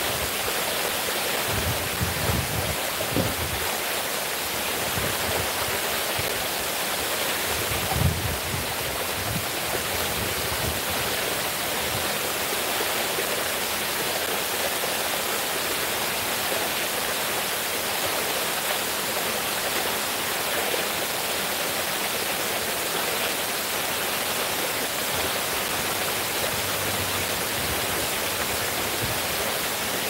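Water cascading down the stone tiers of a stepped fountain into a shallow pool: a steady, unbroken rushing splash. A few short low thumps come in the first eight seconds, the strongest about eight seconds in.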